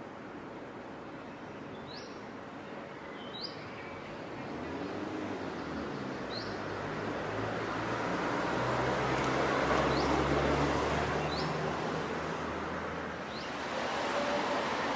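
Street ambience: a motor vehicle passes unseen, its engine and tyre noise swelling to a peak about ten seconds in and then easing off. A bird gives about six short rising chirps, one every second or two.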